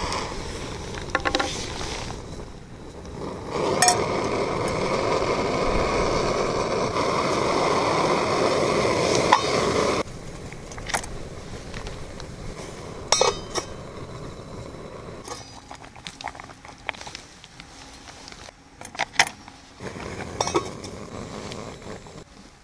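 Canister gas camping stove burner hissing loud and steady for about six seconds after a sharp click, then dropping suddenly to a quieter hiss. Scattered metallic clinks of an aluminium pot and its lid follow.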